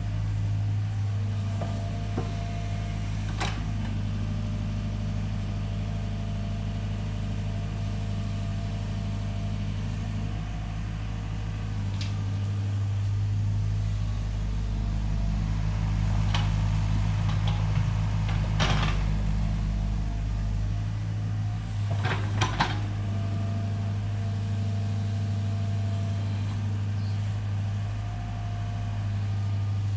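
Excavator's diesel engine running steadily with a low hum, with a few sharp clanks scattered through, the loudest a quick pair about two-thirds of the way in.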